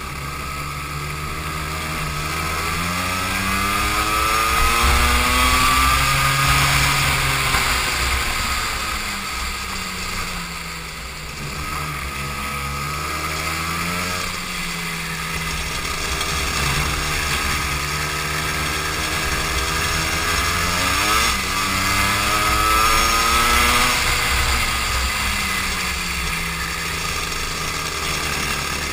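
Go-kart engine heard from on board the kart, its pitch climbing as it accelerates and falling as it slows for corners, several times over.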